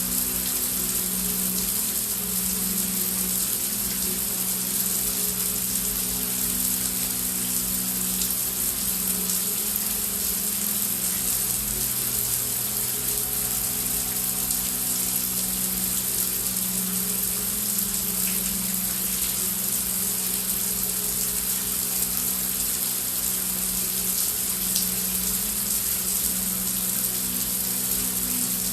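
Heavy rain falling as a steady hiss, with a low steady drone of background ambience beneath it.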